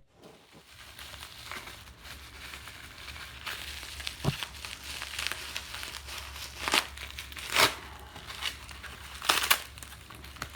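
Packaging crinkling and rustling in bursts as a taped-up bicycle stem is unwrapped by hand, with a single knock about four seconds in.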